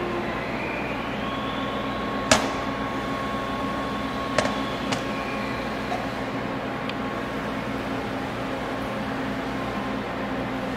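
Steady hum of shop ventilation or machinery, with three sharp metallic clicks about two, four and a half and five seconds in, the first the loudest, as the pump's metal wear ring and end cap are handled and knocked together.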